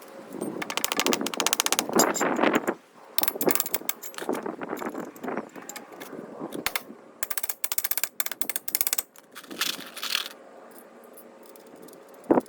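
Several bursts of rapid mechanical clicking from a tool, each lasting about a second, with short pauses between them.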